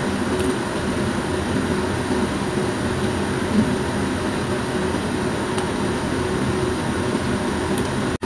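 Steady machine-like hum and hiss with no change in level, cutting out for an instant near the end.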